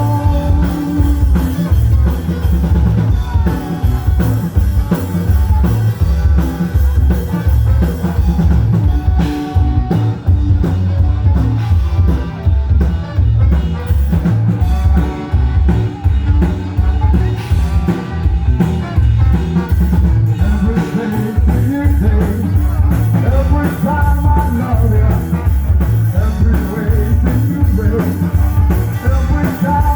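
Rock music with a steady drum-kit beat, heavy bass and singing.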